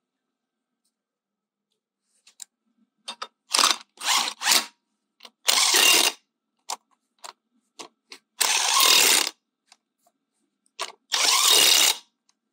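Cordless impact wrench nipping up wheel bolts in short bursts of hammering: three quick bursts, then three longer ones of under a second each, with light clicks in between.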